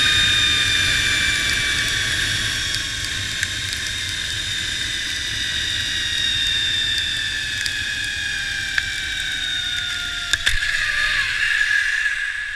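Zipline trolley pulleys running on the steel cable: a high whine in several tones that slowly falls in pitch as the ride slows, over wind rushing on a helmet-mounted camera. A few sharp knocks about ten seconds in, then the whine drops quickly and fades as the trolley brakes into the landing platform.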